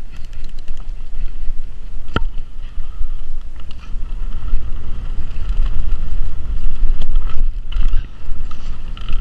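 Mountain bike riding fast down a bumpy dirt trail: wind buffeting the camera microphone over the rumble and rattle of the bike. There is a sharp knock about two seconds in and a few smaller clicks later.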